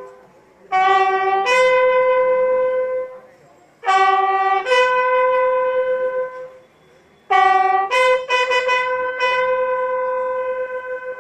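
A bugle sounds a slow ceremonial salute call for a guard of honour over a flag-draped body. It plays three phrases, each a short lower note stepping up to a long held note.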